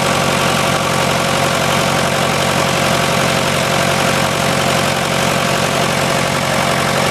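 International TD-6 crawler's four-cylinder diesel engine running at a steady idle after a hard cold start.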